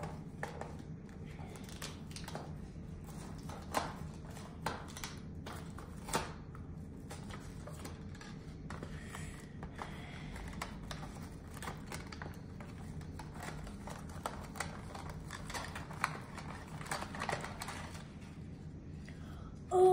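Cardboard toy packaging and plastic wrap being torn open and handled by hand: scattered clicks, tears and crinkles.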